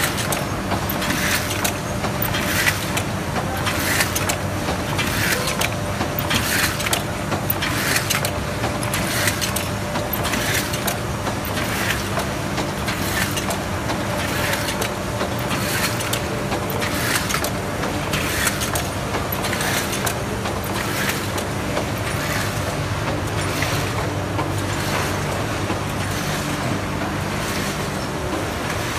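A 1971 Bobst SP 1080 E automatic flatbed die-cutting press with stripping unit running, a steady motor hum under a repeating swish-and-clack of its sheet cycle about once every second and a quarter.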